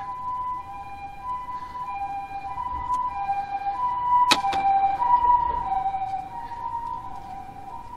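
Passing ambulance siren: a two-tone hi-lo call alternating between a high and a low note, each held well under a second, growing louder to a peak about halfway, then fading. One sharp click about four seconds in.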